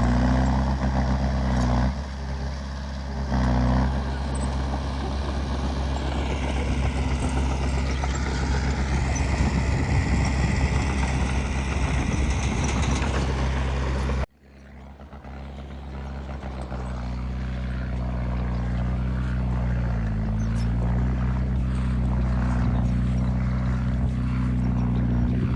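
Heavy diesel engine of earthmoving machinery running steadily under load, easing off briefly about two seconds in. About halfway through the sound cuts off abruptly, then the engine fades back in and keeps running.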